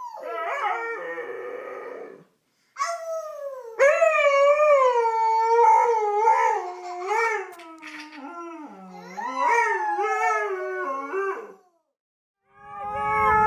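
Dogs howling in long, wavering, pitched calls that rise and fall; the howling comes in three separate stretches, broken twice by a sudden short silence.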